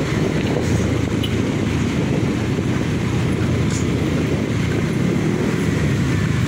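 Motorcycle engine running steadily while riding, mixed with wind rumbling on the microphone.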